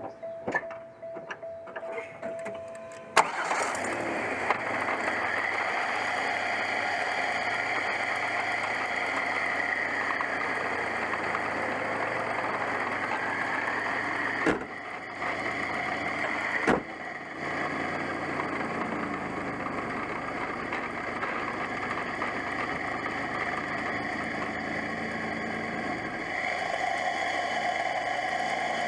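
After about three seconds of intro music, the sound cuts to a turbocharged Pontiac Grand Prix GTP 3800 V6 running, heard close up inside the engine bay. The loudest part is the turbo's steady rushing 'hurricane' noise as it blows into free air. Two short dips, each with a click, come near the middle.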